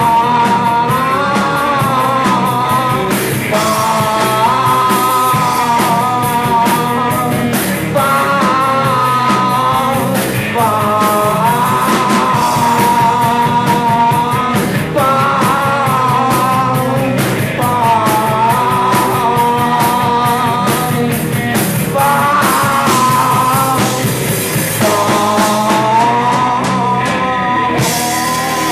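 Live rock band playing at full volume: electric guitar, bass and drums, with a wavering lead line held in phrases of a few seconds over steady drum hits.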